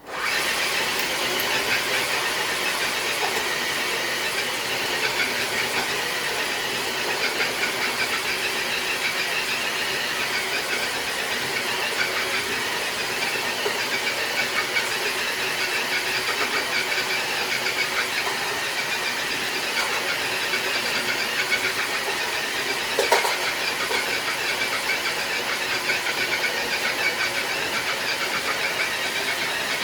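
HB Toys RC crawler truck pulling a weighted dead sled across concrete: a steady whine and grind from its electric motor and gears, with the sled scraping along. A single brief knock comes late on.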